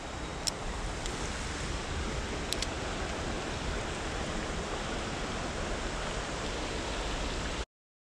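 Shallow river flowing over rocks: a steady rush of running water, with a couple of light clicks about half a second and two and a half seconds in. The sound cuts off suddenly near the end.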